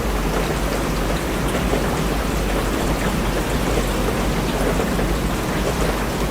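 Steady rain falling, an even hiss with scattered drop patter and a constant low rumble underneath.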